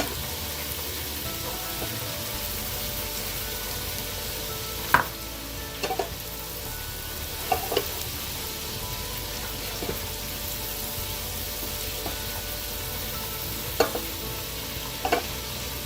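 Hot fat sizzling steadily as food fries, with a few short knocks scattered through.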